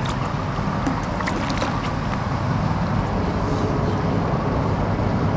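Boat engine running low and steady, with water splashing beside the hull and wind on the microphone.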